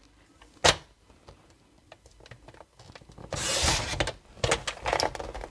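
Paper trimmer's blade carriage pulled down its rail, slicing a strip off a sheet of paper: a scraping slide of just under a second about three seconds in, with a few light clicks and taps around it.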